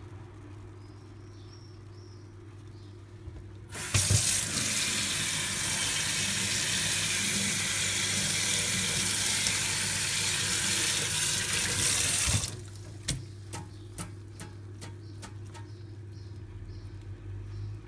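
Kitchen tap turned on, water running hard onto the plastic housing of a mass air flow sensor and into a stainless steel sink for about eight seconds, then shut off abruptly. A few light clicks and knocks follow.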